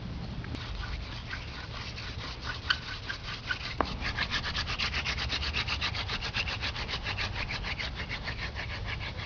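Wooden hand-drill spindle spun back and forth between the palms in a hole in a palm-branch fireboard, rubbing in a fast regular rhythm of several strokes a second that speeds up and grows louder about four seconds in, then stops at the end. This is the burn-in, working the friction enough to raise wisps of smoke.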